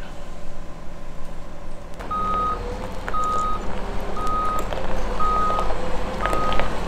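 Mobile crane's reversing alarm beeping about once a second, each beep one steady tone about half a second long, over the steady hum of the crane's diesel engine. The beeping starts about two seconds in.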